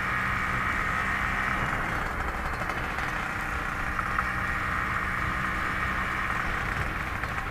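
Kawasaki Brutus 140's two-stroke single-cylinder engine running steadily at low revs under gentle throttle, with a crisp exhaust note. The engine has a new 140 cc cylinder block that is being broken in, with only about 80 km on it.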